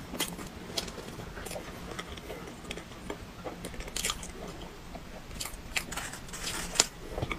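Close-miked chewing and crunching of a mouthful of chocolate cake topped with cookie crumbs, with irregular short crackles and mouth clicks.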